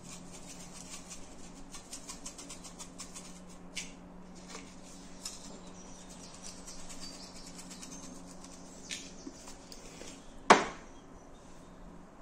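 Ground spice being shaken by hand from small jars over raw chicken and chops: quick runs of light rattling taps, then one sharp knock about ten seconds in. A steady low hum runs underneath.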